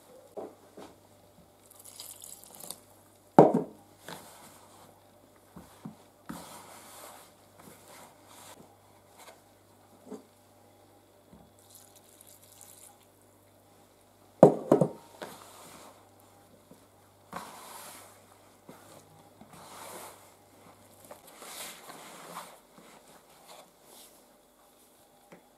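Hands squishing and working flour, olive oil and lukewarm milk into bread dough in a bowl, with milk poured in gradually from a glass jug. Two sharp knocks stand out, one about three and a half seconds in and one near the middle.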